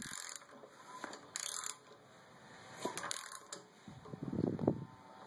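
Scattered light metallic clicks and tool handling on an engine under repair, with a few short scraping bursts, consistent with a wrench being fitted and worked on the crankshaft bolt.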